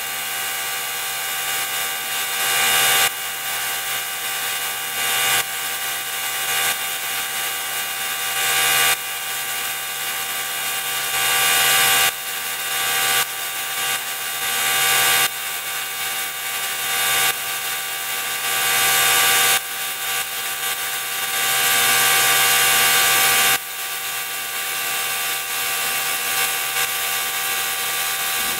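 Air spray gun hissing as it lays a wet coat of clear coat on a car wheel, pass after pass, the hiss changing or cutting off sharply every two to four seconds, over a steady motor hum from the air supply.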